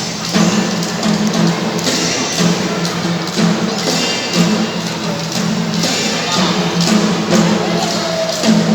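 A children's drum band playing: drums and percussion beating steadily under a held melody line.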